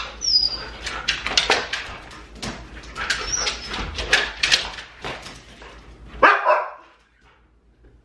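Two huskies jumping up at a door, their claws rapidly scratching and clattering against the door and its clear plastic scratch shield, with a couple of brief high whines. About six seconds in, one dog gives a single loud bark.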